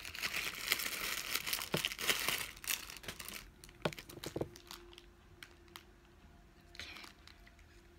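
Grey plastic poly mailer bag crinkling and tearing as it is pulled open by hand: a dense crackly rustle for the first three and a half seconds, then a few scattered crackles before it goes quiet.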